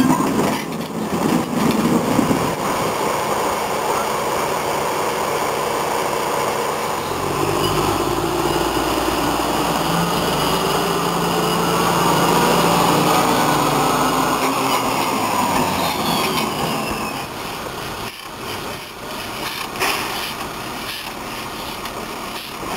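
Small diesel shunting locomotive running along the track, its engine growing louder with a deep rumble as it passes close by, then fading away.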